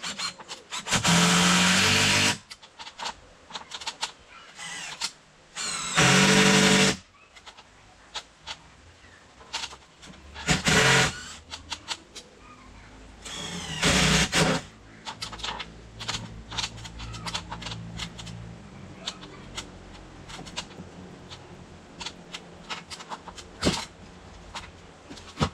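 Cordless drill driving into the timber frame of a shed, running in four bursts of about a second each, with scattered knocks and clicks of handling between them.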